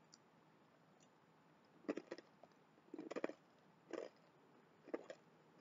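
A person chewing a crunchy sesame stick snack with the mouth near the microphone. After a quiet start there are crisp crunches about once a second, from roughly two seconds in.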